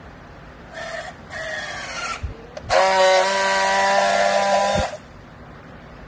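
Battery-powered handheld strapping tool on plastic strap: two short motor runs about a second in as it tensions the strap, then a louder steady whine for about two seconds as it friction-welds the strap, cutting off suddenly.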